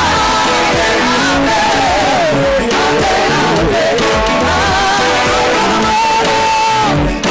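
Live gospel worship music: a group of singers singing loudly into microphones over an instrumental backing that includes a keyboard.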